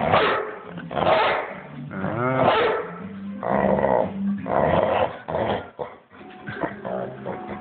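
Pit bull growling in repeated rough bursts, about one a second, as it lunges and mouths at a person's hand in rough play.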